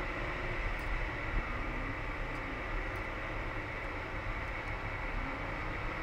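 A car driving along a road, heard from inside the cabin: steady road and tyre noise with the engine's low hum rising and falling slightly.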